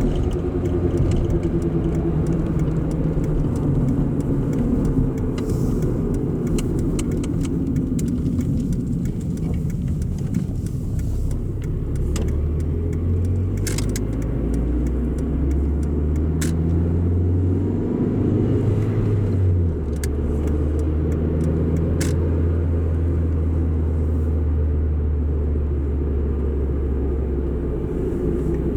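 Chrysler PT Cruiser's 2.0-litre four-cylinder engine running through a new exhaust muffler. The engine note slides down in pitch over the first several seconds, then settles into a steady low drone from a little before halfway, shifting briefly about two-thirds of the way through.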